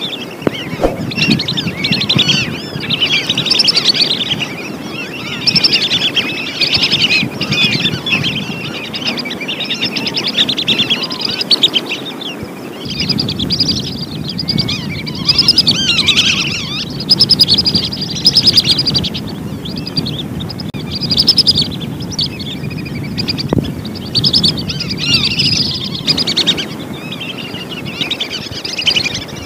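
A flock of whistling ducks calling continuously, many short high whistled notes overlapping in quick succession.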